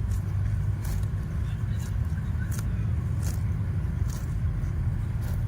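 A motor vehicle running steadily, a low rumble with faint high ticks a little under a second apart.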